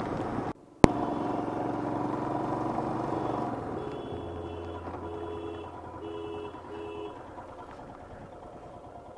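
Motorcycle engine running steadily, growing fainter through the second half, with four short electronic beeps evenly spaced about three-quarters of a second apart in the middle. A sharp click comes after a short gap near the start.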